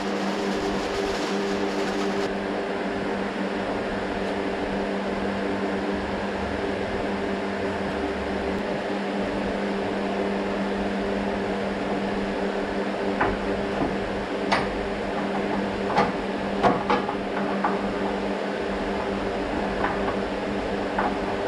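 A steady machine hum with several fixed pitches, like a fan motor running, with a few sharp clicks and crackles in the second half.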